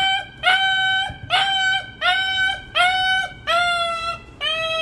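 A dog crying out in pain in a rapid series of high, pitched yelps, about two a second, the cries dropping a little in pitch near the end. The dog is in pain as its injured foreleg is bandaged without anaesthesia.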